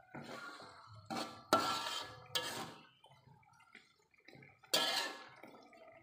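Metal spatula scraping and knocking against a steel wok, stirring chicken feet in a wet chili sauce: a run of short scrapes with some metallic ringing, a pause, then one more scrape near the end.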